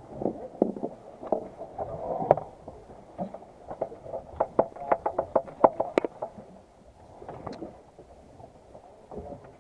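Knocks and taps on a fibreglass boat deck as a caught fish is unhooked from a jig and put into the deck's fish hold, with a quick run of taps about halfway through.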